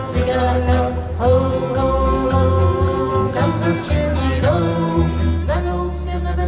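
Live acoustic folk band playing, with an upright double bass holding low notes under acoustic guitar and a melody line.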